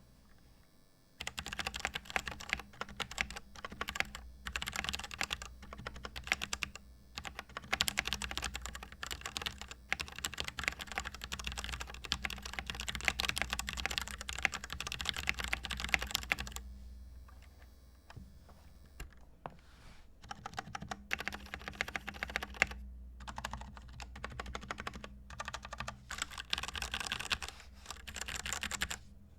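Stock Royal Kludge RK68 mechanical keyboard being typed on: a fast, dense run of key clicks that starts about a second in, slows to scattered keystrokes around the middle, then picks up again in quick bursts.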